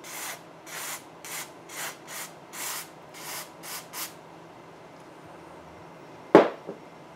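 Quick, even rubbing strokes, about two a second, scrubbing the instrument cluster's circuit board to clean it. They stop about four seconds in. Near the end a sharp knock comes, followed by a smaller one.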